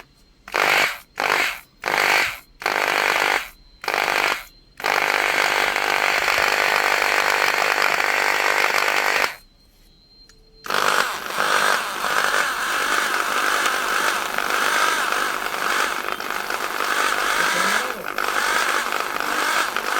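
Bosch GBH 200 rotary hammer drill switched on in several short trigger bursts, then held running for about four seconds. It stops briefly and then runs steadily again for about nine seconds with a different, more even tone.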